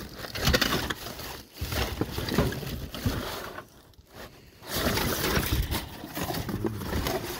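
Rustling and crinkling of plastic bags and cardboard as rubbish is pushed about by hand in a bin, in three long stretches with short pauses between.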